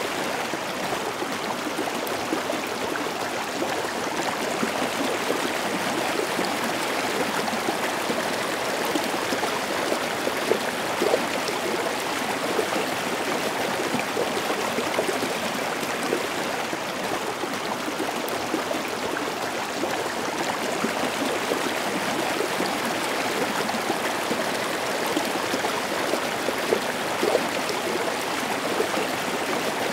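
A small forest stream cascading over mossy boulders in a stepped waterfall: steady rushing and splashing water with a continuous gurgle.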